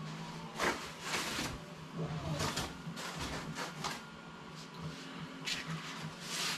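Handling noises from unpacking a workbench kit: several short bursts of scraping and rustling as parts and packaging are moved about, over a faint steady hum.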